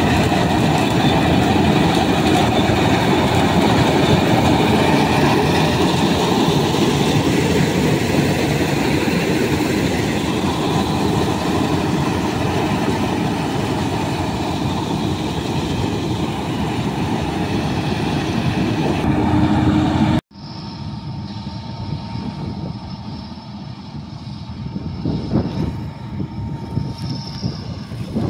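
Don-1500B combine harvester working barley at close range: engine and threshing machinery running in a loud, steady mechanical din. About two-thirds of the way through it cuts off abruptly to a quieter, more uneven sound of a combine harvester running in the distance.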